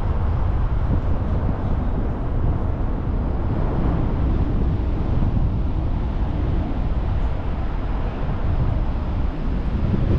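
A car driving: steady low rumble of road and engine noise.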